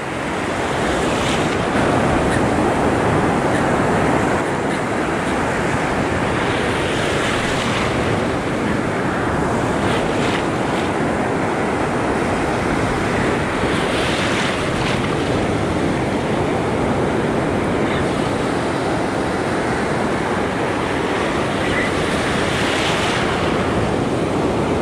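Surf rushing and washing around in the shallows, with a few louder swells as waves break, and wind buffeting the microphone.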